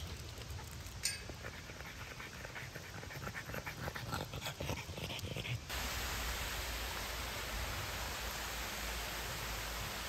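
French bulldog panting as it trots closer, the quick breaths growing louder, with one sharp click about a second in. About halfway through, this cuts abruptly to the steady rush of a small waterfall.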